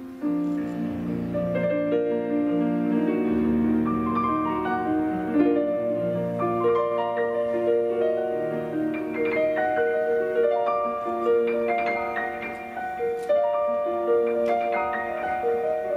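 Yamaha PSR-S950 digital arranger keyboard being played: a moving melody of distinct notes over sustained chords and held low bass notes.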